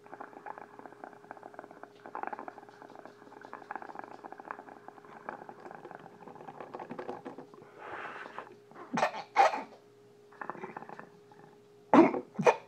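Water in a small glass dab rig bubbling steadily for about seven seconds as a long hit is drawn through it. Then comes a breath out and two pairs of sharp, loud coughs.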